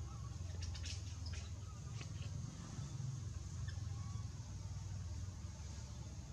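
A steady low rumble with a few faint, short high squeaks and light clicks scattered through it.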